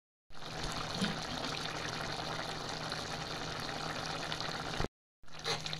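Thick curry of jackfruit seeds and bitter gourd boiling in a pan, a steady bubbling hiss that starts just after a moment's silence and cuts off abruptly near the end.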